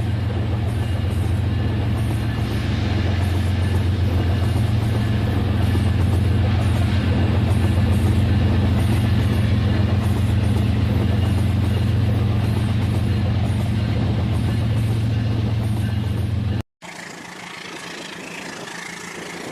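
A toy train's small electric motor and gearing running with a steady, loud hum. It cuts off abruptly near the end, giving way to a quieter running sound.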